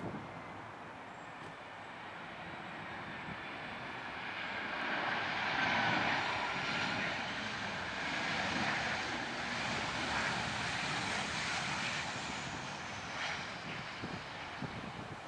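Boeing 737-800 airliner's CFM56 jet engines running as it passes low on final approach. A rushing jet noise swells to a peak about six seconds in, with a high whine that slides slowly down in pitch, then eases off as the aircraft flares over the runway near the end.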